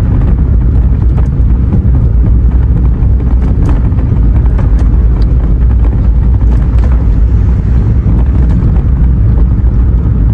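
Car driving, heard from inside the cabin: a steady low rumble of road and engine noise with faint scattered ticks.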